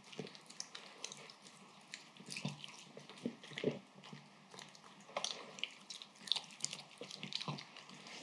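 A papillon chewing and licking food off a wooden floor: irregular wet smacks and small clicks.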